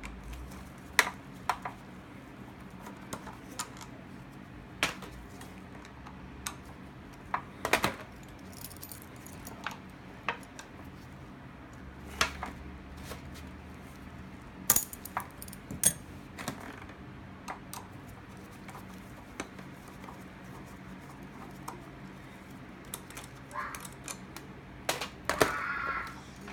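Scattered sharp metallic clicks and taps as a screwdriver and locking pliers work on the screws and top covers of a 2001 Suzuki Bandit 1200S carburetor bank resting in an aluminium foil pan, with a brief rustle near the end.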